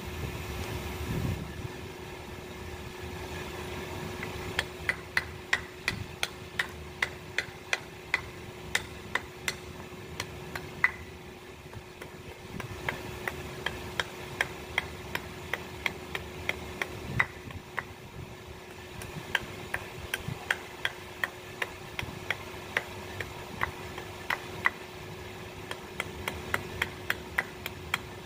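Light hammer taps on metal, about two or three a second, over a steady low hum. The tapping starts a few seconds in, pauses briefly near the middle, then resumes.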